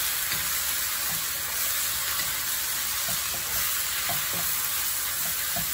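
Shredded beef with tomatoes and shallots sizzling in hot oil in a steel wok, a steady frying hiss, while a wooden spatula stirs and turns it in repeated short strokes against the pan.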